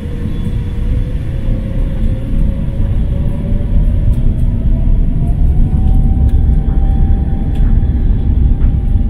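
Airbus A350's Rolls-Royce Trent XWB turbofans heard from inside the cabin, spooling up with a rumble that grows louder and a whine that rises in pitch from about three to six seconds in, then holds: thrust coming up as the takeoff roll begins.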